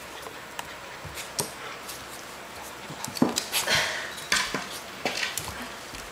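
Shiba Inu puppy play-fighting with a cat: short, scattered dog noises and scuffling in a string of sharp little bursts, busiest between about three and five seconds in.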